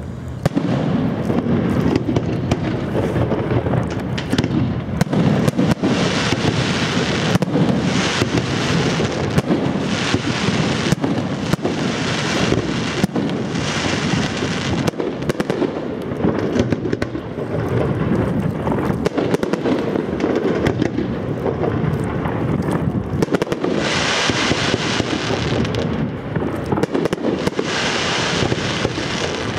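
Fireworks display going off: a dense, continuous run of bangs over a steady rumble, with several stretches of brighter crackling.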